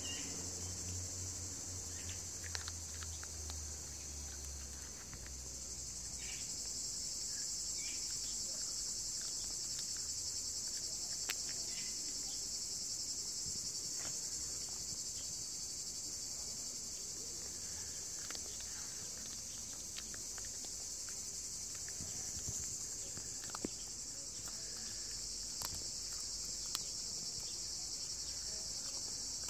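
Steady high-pitched chorus of insects, with a few short sharp clicks scattered through it from the cat crunching a raw chicken neck.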